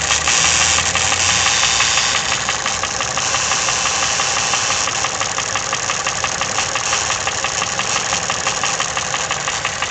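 Toyota 1KR-FE 1.0-litre three-cylinder petrol engine running with a rapid, steady knocking tick. The knock persists with a new timing chain, tensioner and chain guide, and its cause is unknown.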